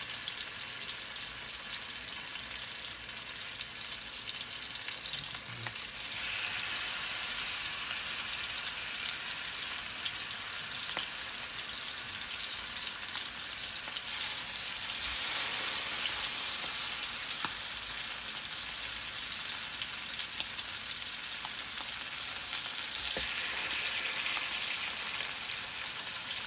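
Marinated chicken pieces sizzling as they fry in oil in a hot electric skillet while being laid in to brown. The sizzle steps up louder about six, fourteen and twenty-three seconds in as more pieces go into the pan.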